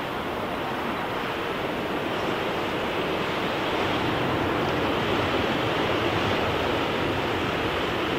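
Aircraft engine noise, a steady rushing sound that slowly grows louder.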